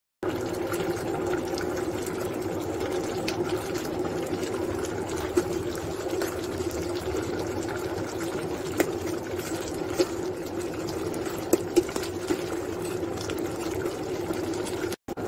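Red lentils (masoor dal) cooking in a steel pot on an induction cooktop, heard as a steady hum and bubbling. A steel ladle stirs the pot and clinks sharply against its side several times in the middle stretch.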